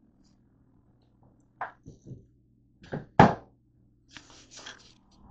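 A few short knocks and thumps, the loudest about three seconds in, followed by a brief rustle: the camera being handled and set against a hard surface.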